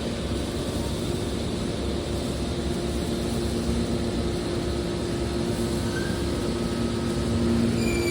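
Hydraulic scrap steel baler running: a steady machine drone with a constant hum, growing a little louder near the end.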